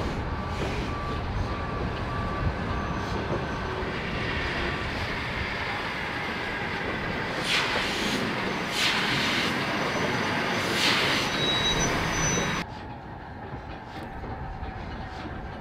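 Steam train running on the line: a steady rumble, with three loud hissing bursts a little past halfway. Near the end the sound drops suddenly to a quieter, duller rumble.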